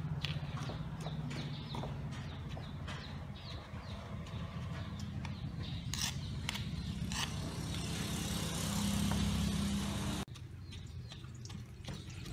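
Wooden pestle pounding and grinding a yellow herb paste in a stone mortar, with scattered knocks and a spoon scraping the pestle about six seconds in. Under it, the loudest thing is a steady low engine-like hum that swells near the end, then cuts off suddenly about ten seconds in.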